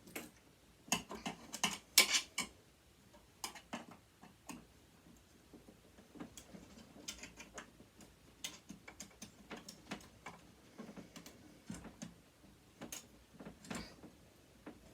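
Irregular small clicks and ticks of hand tools and metal parts being worked while a sewing machine is taken apart, louder and closer together in the first couple of seconds.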